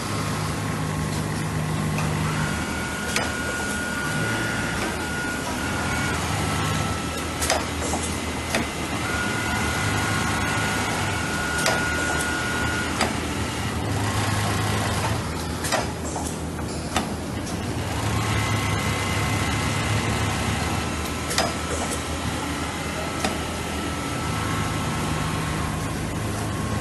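Several Richpeace programmable pattern sewing machines running at once: a steady mechanical hum with high whining tones that start and stop every few seconds, and occasional sharp clicks.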